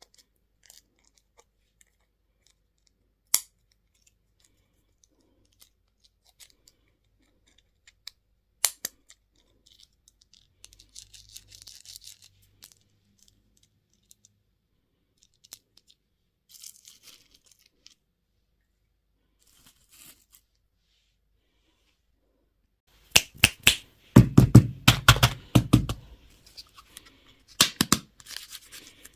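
Candy and toy wrappers being opened by hand. A few sharp isolated clicks and faint crackles come first, then a loud, dense spell of crinkling and tearing late on, and a shorter one just before the end.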